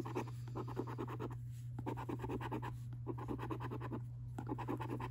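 A coin scratching the coating off a lottery scratchcard in bursts of quick back-and-forth strokes, with short pauses between panels as each number is uncovered.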